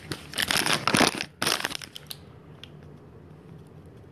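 Crinkling and rustling as a hand digs through a kitchen trash bag and pulls out a crumpled paper instant-oatmeal packet, in two bursts of about a second each, followed by a few faint ticks.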